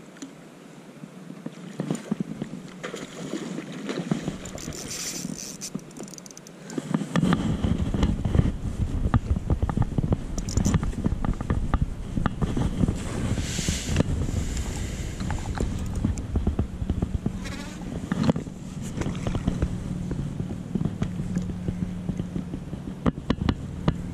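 Spinning reel clicking and turning while a hooked fish is played on the line. From about seven seconds in, a heavy low rumble with crackling on the microphone covers it.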